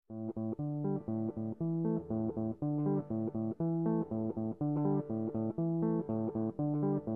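Background music: plucked guitar with a low bass line, in short rhythmic notes, starting abruptly from silence.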